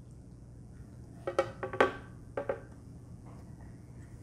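A measuring cup knocking lightly against the blender jar and counter: a quick cluster of clatters a little over a second in, then two more knocks shortly after.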